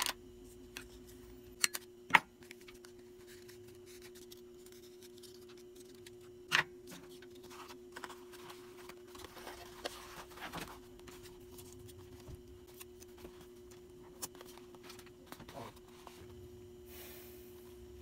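Small items and packaging being handled while packing orders: scattered clicks and taps, two sharp knocks about two seconds in and another near seven seconds, with soft rustling in between, over a steady low hum.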